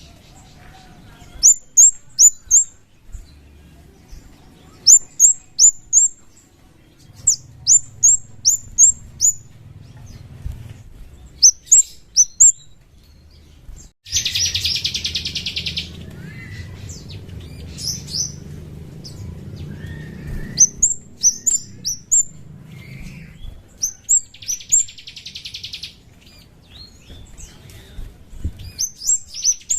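Kemade bird calling: quick runs of three to five sharp, high, falling chip notes, repeated every second or two. A harsh buzzing trill of about two seconds cuts in around the middle, and twice more near the end.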